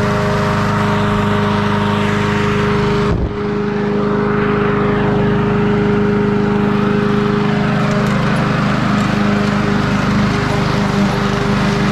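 21-inch commercial Honda walk-behind lawn mower engine running steadily under load while mowing, with a brief dip about three seconds in.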